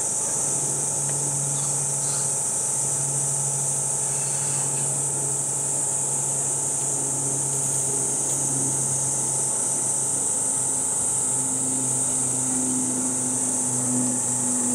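Cicadas in a steady, unbroken high-pitched summer chorus, over a low mechanical hum that steps up in pitch about halfway through.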